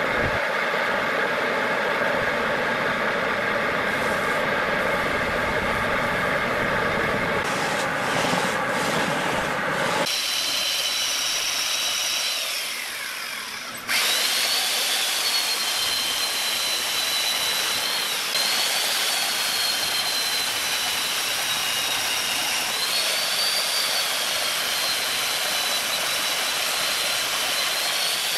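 A steady mechanical running noise for about the first ten seconds. Then a chainsaw cuts into the rim of a large turned wooden vessel on a lathe, its high whine wavering up and down in pitch as the bar bites into the wood. The sound changes abruptly about ten and fourteen seconds in.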